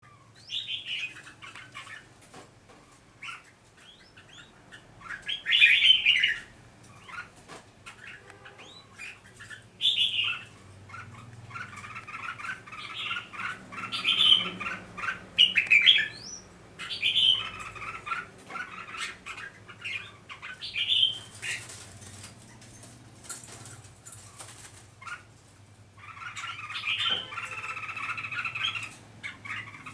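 Red-whiskered bulbuls calling in bright, repeated chirping phrases, one loud phrase every few seconds, with a longer stretch of song near the end. Short clicks and wing flutters from the birds moving in their cages come between the calls.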